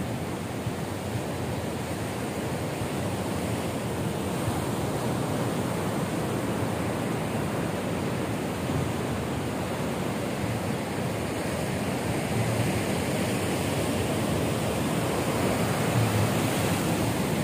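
Sea surf washing steadily onto the shore, a continuous roar of breaking waves that grows a little louder in the last few seconds.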